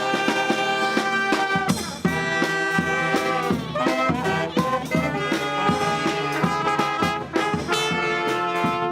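Street brass band playing: trumpets and trombones holding chords over steady percussion hits.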